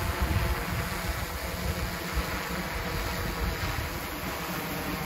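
DJI Matrice 600 hexacopter's six rotors droning steadily as it flies overhead, with gusty wind buffeting the microphone.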